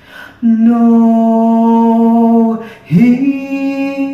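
A man singing a worship song solo: a quick breath, one long held note, another breath, then a note that slides up and is held.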